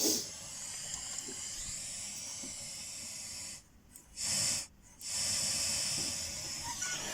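Pink noise test signal from a Dolby Cat. 85 pink noise generator, a steady hiss that cuts out twice briefly near the middle.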